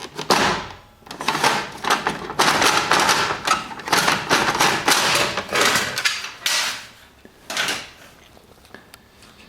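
Plastic knocking, clicking and scraping as the paper tray of a Canon Pixma iP4500 printer is pushed and worked against the casing. The rapid run of knocks and scrapes stops about three quarters of the way through.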